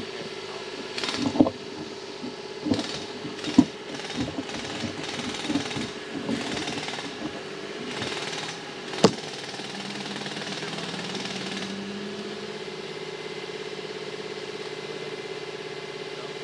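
Jackhammer running steadily as it chips into concrete. Irregular knocks and rustles from handling the phone come through in the first half, with one sharp click about nine seconds in.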